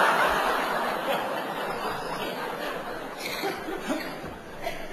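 Theatre audience laughing, loudest at first and dying away.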